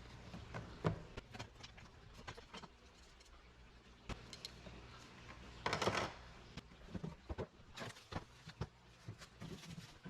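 Crossbow packaging and parts being handled during unboxing: scattered light clicks and knocks, with a short, louder rustling noise about six seconds in.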